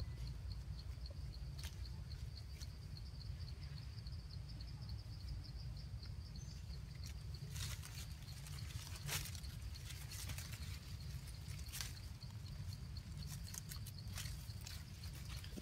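Branches and leaves rustling and snapping as monkeys climb and scramble through a tree, in bursts about halfway through and again near the end. Behind this runs a steady high pulsing trill like an insect, with a low rumble underneath.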